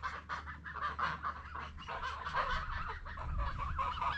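A flock of geese honking and cackling: many short, overlapping calls, one after another.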